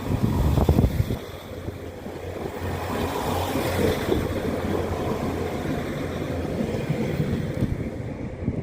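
Wind buffeting the microphone, gusting hard in the first second, over a steady low hum and a wash of outdoor noise.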